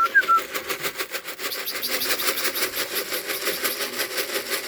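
A motor engine running steadily with a rapid, even pulse, after a couple of short high chirps right at the start.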